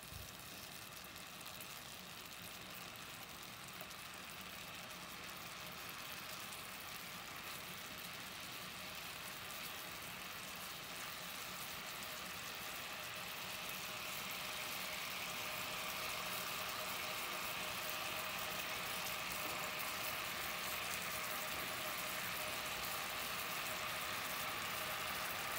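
Homemade longganisa sausages sizzling and bubbling in a little water in a frying pan, a steady hiss that grows gradually louder through the second half.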